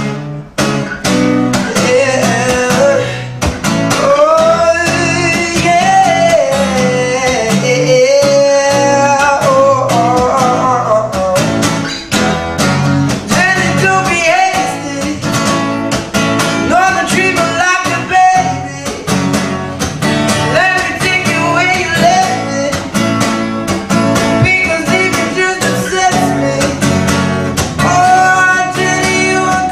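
A song: a voice singing a melody over strummed guitar.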